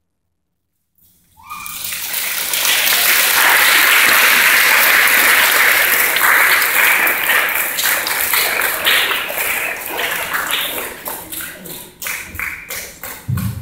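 Audience applauding: the clapping starts suddenly about a second in, holds dense and loud, then thins into scattered separate claps near the end.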